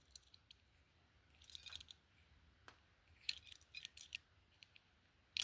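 Faint clicks and scrapes of a multitool's pliers being worked: the jaws and handles pivoting as they grip and bend something. There is a sharper click near the end.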